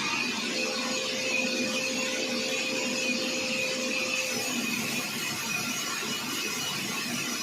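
Sawmill wheel saw running with a steady machine whine.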